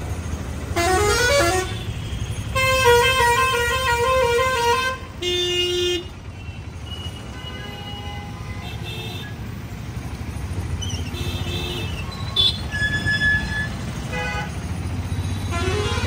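Vehicle horns of several different pitches honking over a steady low traffic rumble. A horn rises in pitch about a second in, a loud, long, warbling horn sounds from about two and a half to five seconds, then a short lower one, with fainter honks later on.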